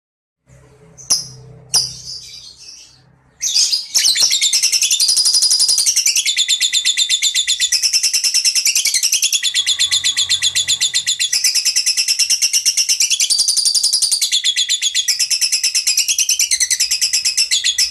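A small bird chirping in a long, rapid run of high, evenly repeated notes whose pitch steps up and down. A couple of sharp clicks come before it starts, about a second in.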